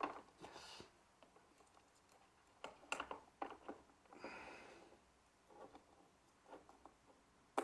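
Faint handling noises of electrical testing: light clicks and taps of multimeter probes on terminals and wires, a brief rustle, and one sharper click near the end.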